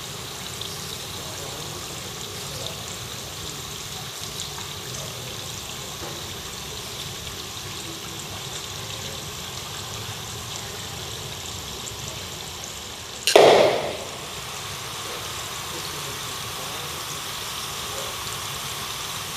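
Two pyrotechnic fountains hissing steadily as they burn, with one sudden loud burst lasting under a second about thirteen seconds in.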